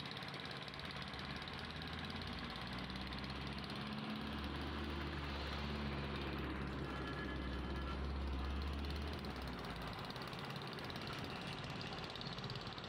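Truck engine idling, a deep steady hum that swells over a few seconds and eases off about nine seconds in, over the background noise of stopped traffic.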